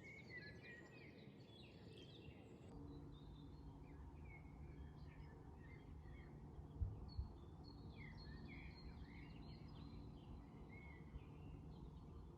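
Faint songbirds chirping and twittering over a low, steady background rumble, with two soft low thumps about seven seconds in.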